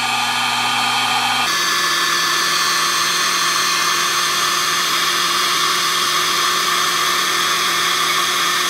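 Electric heat gun blowing steadily while shrinking the polyolefin tubing of a crimped butt connector; its tone shifts about a second and a half in and then holds steady.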